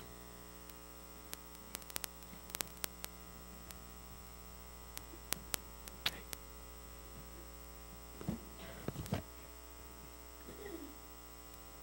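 Steady electrical mains hum with many overtones, and a few faint, scattered clicks and knocks over it.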